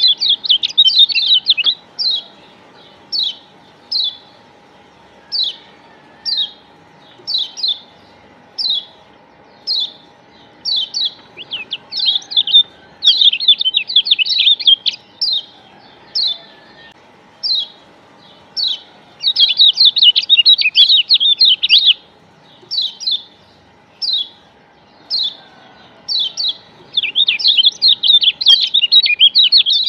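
Kecial kuning (Lombok yellow white-eye) singing: short, sharp chirps about once a second, broken three times by several seconds of rapid, dense twittering.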